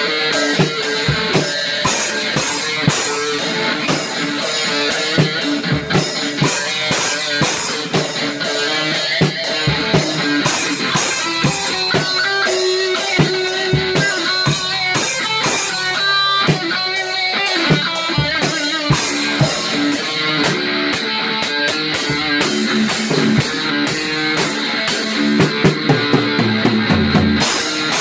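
Rock music: strummed electric guitar over a drum kit keeping a steady beat.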